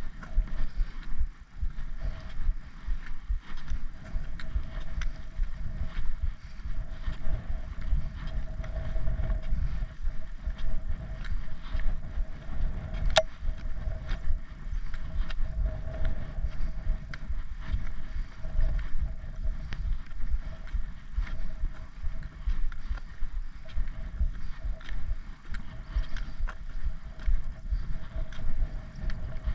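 Walking on a tarmac lane, heard through a body-worn camera: a low, uneven rumble of wind and movement on the microphone with many small footstep clicks, under a faint steady hum. One sharp click stands out about halfway through.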